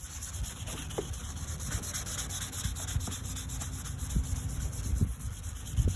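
Hand wet-sanding an oxidized plastic headlight lens with fine sandpaper: a steady scratchy rubbing of repeated strokes across the wet lens.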